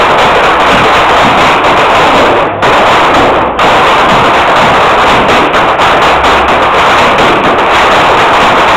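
Loud Irish dance music with the sharp clatter of hard-shoe steps from a line of dancers, many quick taps running through it.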